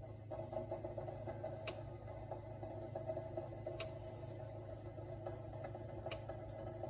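Samsung RT32 refrigerator running with a steady low hum and a rough mid-pitched drone, with three sharp ticks about two seconds apart. This is the abnormal noise the owner reports.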